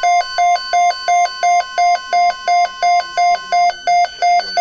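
Electronic alert tone of the kind a broadcaster plays before an emergency alert: a low beep and a higher tone alternate evenly, just under three times a second. It signals that an emergency weather bulletin, here a severe thunderstorm watch update, is about to be read.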